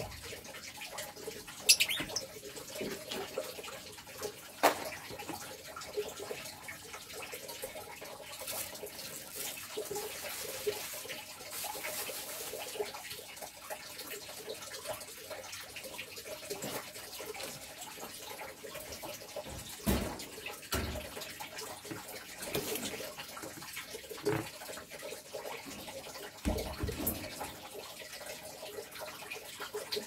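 Steady rushing noise like running water, with scattered soft clicks and a few low thumps.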